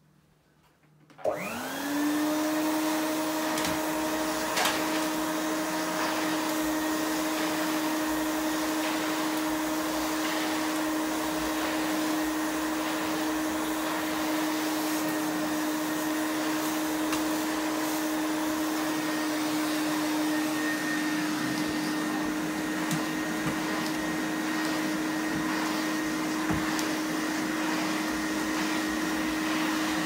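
1998 Victor D9 commercial tub vacuum cleaner switched on about a second in. Its motor whines up to speed within a second, then runs at a steady pitch while the floor tool is pushed over carpet. The motor's fan case is taped and its inner baffle glued back in after the motor fell apart.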